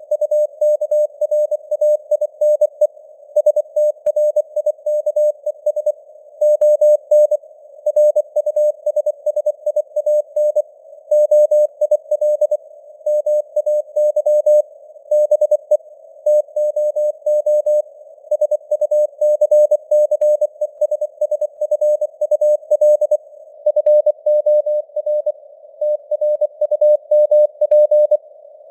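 Morse code (CW) sent at 24 words per minute as a keyed tone of about 600 Hz. Rapid dots and dashes play throughout over a narrow band of simulated radio-receiver hiss that fills the gaps between them.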